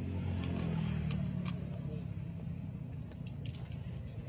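A vehicle engine's low steady hum, easing after about two seconds, with scattered faint sharp clicks in the second half.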